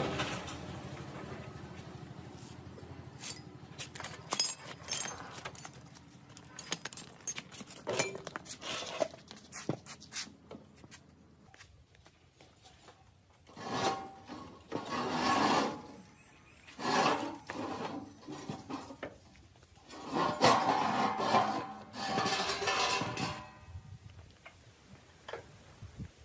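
Metal parts and tools clinking and scraping as the engine is taken apart: many sharp clicks at first, then several longer bursts of scraping or rubbing lasting a second or more each.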